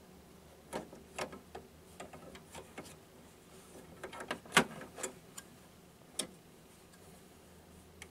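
Scattered small plastic clicks and taps as ink cartridges are handled and pushed into an HP inkjet printer's cartridge carriage, the loudest click about four and a half seconds in.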